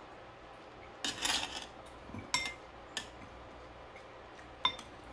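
Metal spoon scraping and clinking against a glass bowl and a metal serving tray while scooping corn: a short scrape about a second in, then three sharp ringing clinks, the last the loudest.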